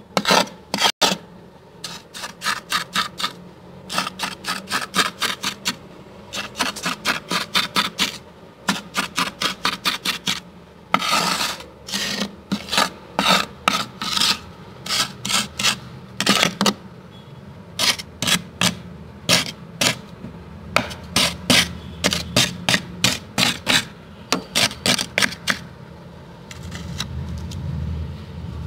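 A spoon scraping the built-up frost inside a freezer, in quick rasping strokes, often several a second in runs, with a few longer drawn-out scrapes. A low rumble comes in near the end.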